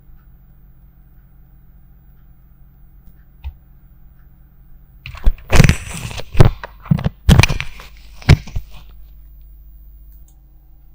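A faint steady hum, then about five seconds in a cluster of loud crackles and knocks lasting about three and a half seconds.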